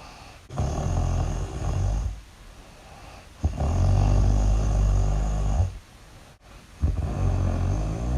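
Loud snoring: three long snores, each about two seconds, with short quiet pauses between breaths.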